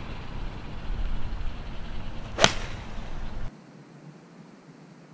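A 7-iron striking a golf ball on a tee shot: one sharp, crisp click about halfway through, over a low rumbling background. The background noise drops away suddenly about a second after the strike.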